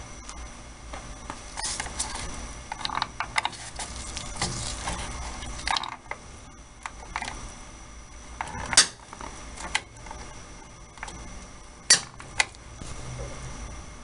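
Clicks and small handling noises from a gloved hand turning the control knob of a gas water heater's Honeywell gas control valve, with three sharp, loud clicks in the second half.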